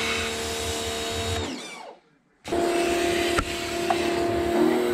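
A small electric motor running at a steady pitch with a low rattle under it. It is switched off and winds down to a stop about two seconds in, then starts again half a second later and runs on steadily.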